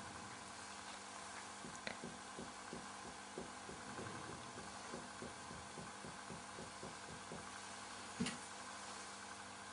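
Very quiet finger-to-finger chest percussion: a run of soft taps, about three or four a second, as a finger strikes a finger laid over the second intercostal spaces to find the width of the vascular bundle. A sharper click sounds about two seconds in, and a louder one near the end.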